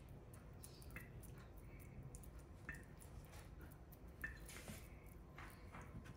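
Faint wet squishing, with a few small sticky clicks, from hands pressing raw pork mince into tofu pieces.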